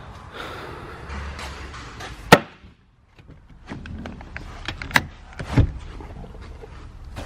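Handling noises around the truck: rustling and clatter, a single sharp knock about two seconds in, then scattered clicks and two more knocks later on.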